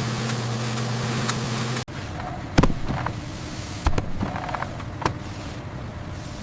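A steady mechanical hum. After a sudden cut it gives way to a few sharp knocks, about a second apart, with lighter clicks between them.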